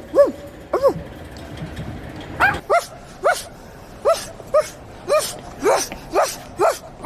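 A person imitating a dog with a string of short, high yipping barks, each rising and falling in pitch: two, a pause of about a second and a half, then roughly two a second.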